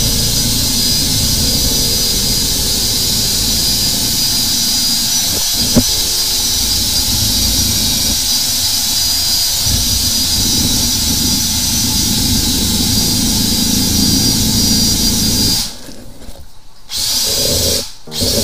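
Flexible-shaft drain-cleaning machine running steadily, its motor spinning the cable down a clogged urinal drain to clear the blockage. One sharp click about six seconds in; the machine cuts out a few seconds before the end, runs again for about a second, and cuts out again.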